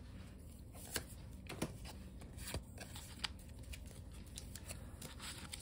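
Pokémon trading cards being handled on a table: faint, scattered clicks and rustles of the cards as they are moved and picked up.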